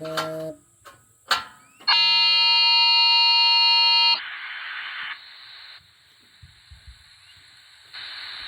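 A loud, steady buzzing alarm tone held for about two seconds, then cutting off into a quieter steady hiss that fades and returns near the end.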